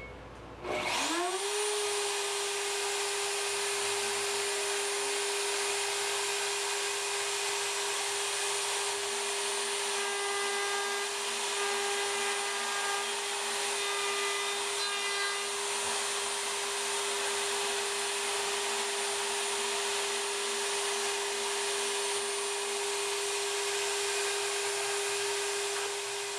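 Milwaukee router working as a DIY CNC machine's spindle: it spins up about a second in, then runs at a steady high whine while milling aluminum T-track. Between about 10 and 15 seconds, short on-and-off tones at several pitches join in.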